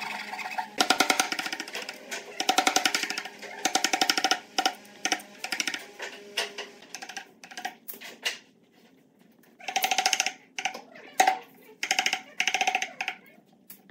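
A hand saw rasps through a pine frame in a few back-and-forth strokes. Then a wooden mallet knocks a chisel, which chops and pares out the waste wood in scattered sharp knocks and short scraping cuts.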